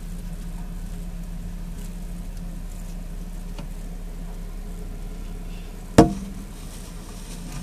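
A steady low hum throughout, with one sharp knock about six seconds in.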